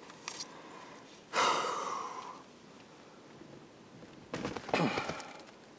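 A person breathing out heavily in two long sighs, about a second and a half in and again near the end; the second carries a falling sound of voice.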